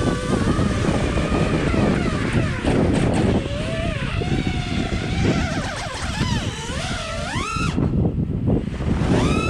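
FPV freestyle quadcopter's brushless motors and propellers whining, the pitch swooping up and down with the throttle over wind rush. Near the end the pitch drops away sharply, then climbs back.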